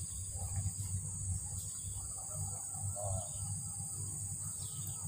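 Steady high-pitched drone of insects, with a low fluctuating rumble underneath.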